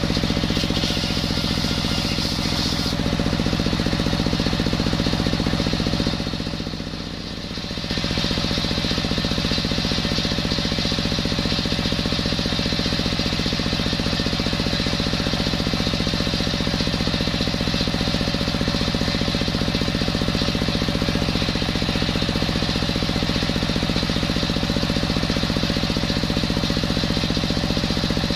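Stationary single-cylinder diesel engine running steadily and driving a bench circular-saw blade, which whines as it rips a coconut-wood log into a beam. The sound dips briefly about a quarter of the way in, then carries on as before.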